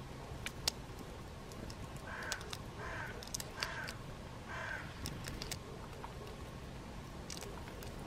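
A bird of the crow family giving four harsh caw-like calls, between about two and five seconds in, with scattered short clicks around them.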